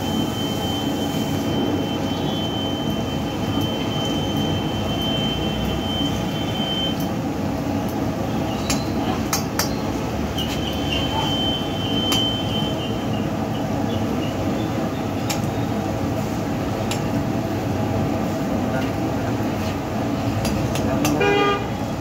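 Jalebis frying in a large iron kadhai of oil, with metal tongs clinking against the pan every few seconds over a steady low rumble.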